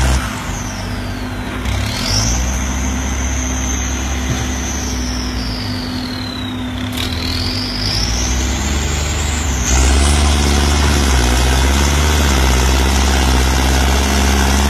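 Turbocharged diesel engine of a farm tractor running hard, its turbo whistle gliding down and up in pitch as the throttle changes. About ten seconds in it gets louder and the whistle rises higher.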